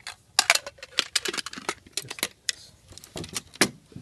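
Metal canteen cups, pot and lids being nested and set together by hand, giving a quick irregular run of clinks and clicks.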